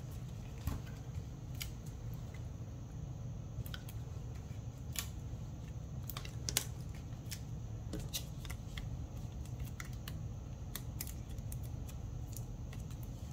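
Paper and cardstock being handled on a tabletop: scattered light clicks and ticks as foam adhesive pieces are peeled and stuck onto a paper sentiment banner and pressed onto a card, over a steady low hum.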